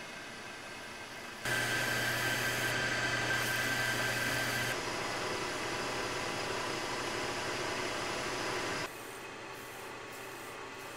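Metal lathe running with a steady motor hum and hiss while a spinning steel part is worked by hand with abrasive and a shop towel. It starts louder about a second and a half in and drops back to a quieter hiss near the end.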